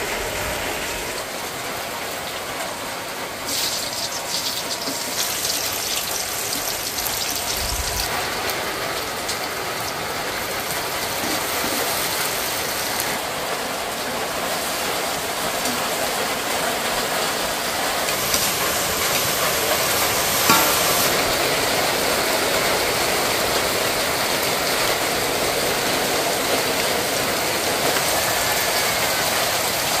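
Heavy rain falling in a steady hiss, with one short knock about two-thirds of the way through.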